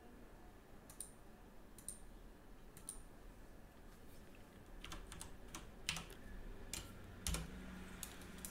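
Faint computer keyboard and mouse clicks, a handful of separate presses spread over several seconds as a dimension value is typed in, with a soft low knock about seven seconds in.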